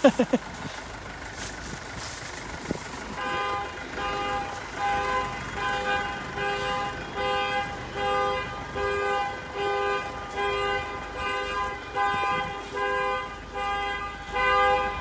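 Repeating electronic beep with several pitches at once, sounding in short pulses a little more than once a second, starting about three seconds in, over light street noise.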